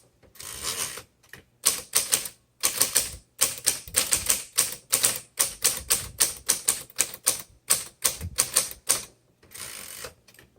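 Typewriter typing: quick sharp keystroke clicks, several a second, with a short rasping sound just after the start and another near the end.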